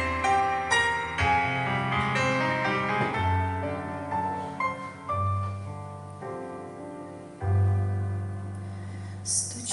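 Piano-sounding keyboard playing a slow, gentle melody over long held bass notes: the instrumental introduction to a sung hymn.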